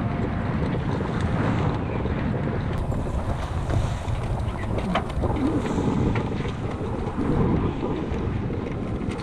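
Strong wind buffeting the microphone on a sailboat under way, with water rushing past the hull underneath; a steady, heavy roar with a few faint ticks from the rigging.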